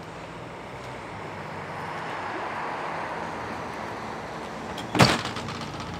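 A vehicle passing on a nearby road, its noise swelling and fading, then a sharp knock about five seconds in as a door shuts.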